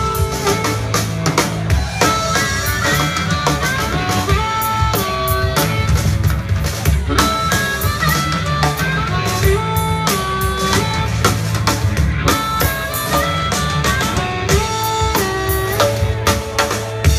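Live blues band playing on an amplified stage: a lead line of held notes that bend in pitch over a steady drum kit beat and bass.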